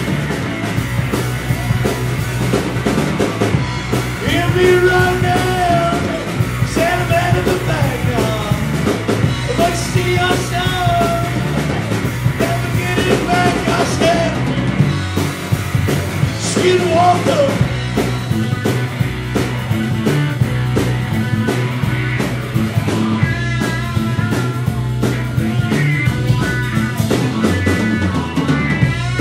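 Live rock band playing: electric guitar, bass guitar and drum kit, with a man singing into the microphone from about four seconds in until about seventeen seconds in, the band carrying on without vocals after that.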